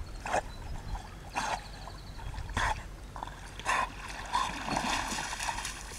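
Water splashing in short bursts, roughly once a second.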